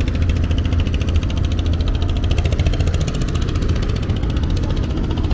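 Boat engine idling steadily, with a fast, even pulse over a low rumble.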